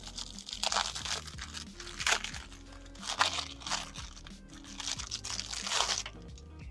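Thin plastic tattoo-pen machine cover and its packet being handled, crinkling and rustling in several irregular bursts, over quiet background music.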